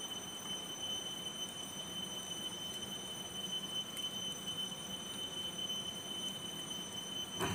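Open wood cooking fire burning under a pot and a green bamboo tube: a steady low hiss with a faint crackle about four seconds in, under a thin, steady high-pitched tone.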